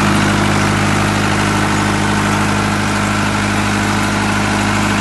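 Four-cylinder diesel generator set running steadily at constant speed, an even engine drone with no change in pitch.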